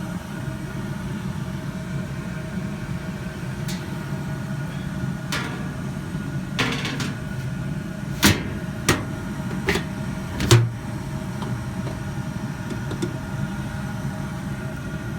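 Furnace running steadily with its blower fan on, a constant hum. Several sharp clicks and knocks come over it in the middle stretch, the loudest about ten and a half seconds in.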